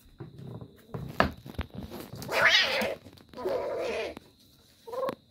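A kitten gives two long, loud cries and a short third one while guarding its prey from another kitten, a possessive warning over the catch. Scuffling knocks on the wooden floor come in the first couple of seconds.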